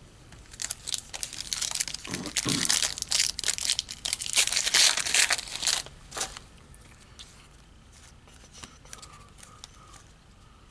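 A 2016 Donruss baseball card pack being torn open, its wrapper tearing and crinkling in dense rustling bursts for the first six seconds or so, then only faint handling sounds.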